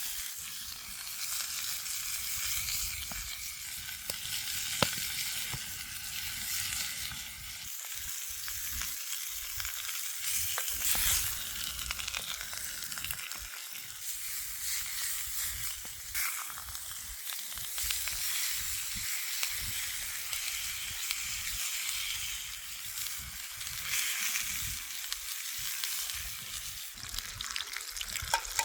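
Food frying over a campfire: a steady sizzle with scattered sharp pops.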